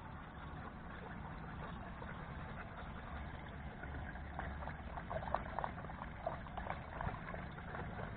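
A dog lapping water from a stainless-steel fountain bowl: quick, irregular wet laps that start about halfway through, over a steady low rumble.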